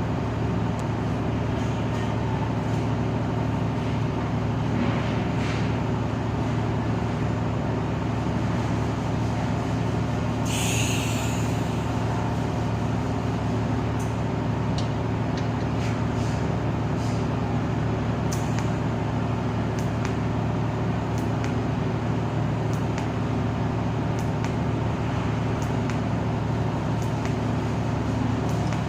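TIG welding setup giving a steady electrical hum, with faint scattered ticks and a short high hiss about ten seconds in.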